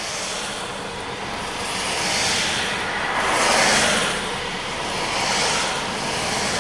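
Cars driving past on a wet road, their tyres hissing on the wet pavement, the noise swelling as each one goes by.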